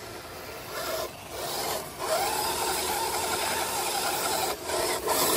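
A 1/10-scale RC rock crawler's electric motor and gear drivetrain whining and rasping under throttle in short bursts as it struggles over rough rock. It cuts out briefly about a second in, again around two seconds, and near the end, with a slow rise and fall in pitch in the middle.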